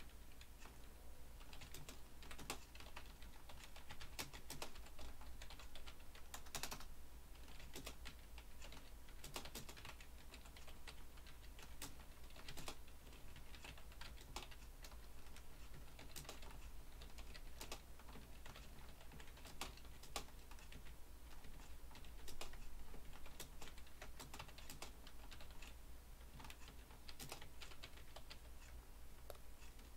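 Computer keyboard typing at a steady working pace, a run of irregular, faint keystroke clicks.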